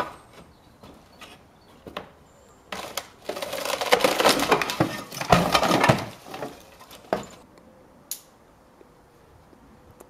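Broken roof tiles and debris clattering and crunching as someone moves across a storm-damaged roof: a few sharp knocks, then about four seconds of dense rattling and scraping starting about three seconds in.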